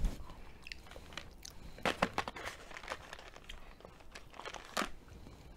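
Chewing and crunching hard candy-coated peanuts at close range, in scattered crunches with a few sharper ones about two seconds in and near the end.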